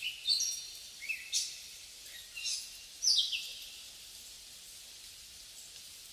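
A bird calling outdoors: about five quick high chirps, each falling in pitch, in the first three and a half seconds, over a steady faint hiss.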